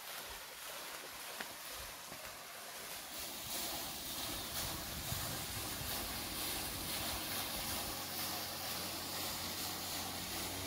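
Water running down a water slide and pouring into a swimming pool, a steady rushing hiss. From about halfway through a low steady hum joins in.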